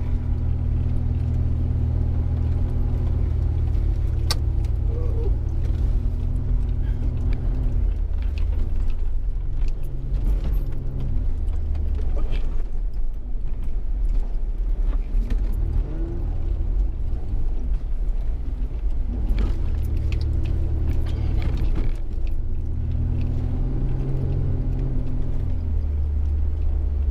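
Off-road vehicle engine driving on desert sand, its pitch rising and falling several times as it revs and shifts, with a few knocks and rattles.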